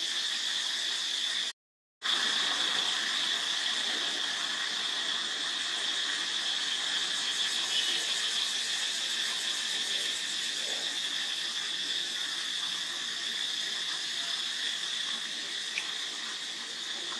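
Steady insect chorus, a constant high-pitched drone such as cicadas make. It breaks off completely for about half a second near the start.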